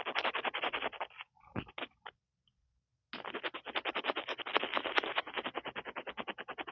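Rapid tapping and scratching directly on an earphone's built-in microphone, a fast string of strokes that pauses for about a second near the middle, then starts again.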